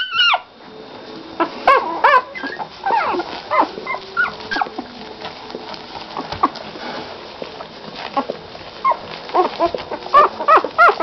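Week-old puppies whimpering and squealing: many short, high squeaks that rise and fall in pitch in quick runs, busiest in the first few seconds and again near the end.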